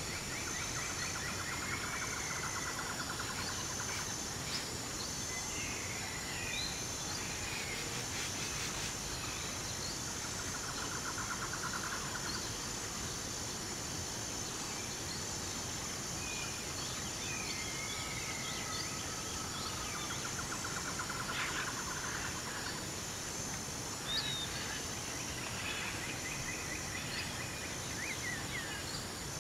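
Mountain river rushing over rocks in a steady wash, with small birds calling over it: short chirps and slurred whistles, and a buzzy trill that comes back about every ten seconds.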